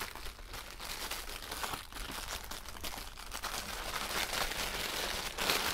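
A bag crinkling and rustling unevenly as it is handled, with a flurry of small crackles.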